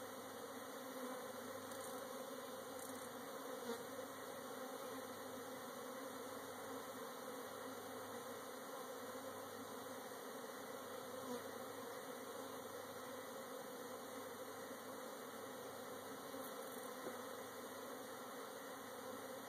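Honey bees from a cut-out colony buzzing around an open hive in a steady low hum, with a few faint knocks as comb and frames are handled.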